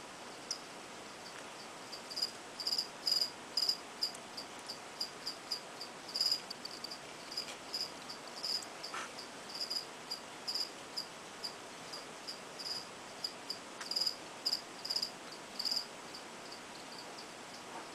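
Crickets chirping: short, high chirps at one pitch, repeated irregularly about two a second.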